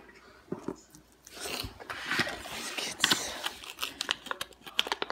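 Scattered light clicks and scrapes of a diecast toy monster truck being handled and moved about on a hard counter, with soft rustling; the clicks come thicker in the second half.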